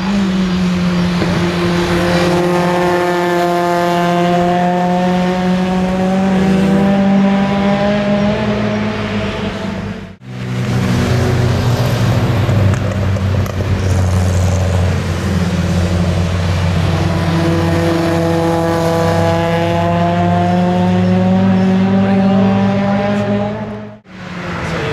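Modified Ford Fiesta Zetec S four-cylinder engine running hard on a race track, its note climbing slowly as the car accelerates. The sound is heard in two separate passes, with a sudden cut about ten seconds in.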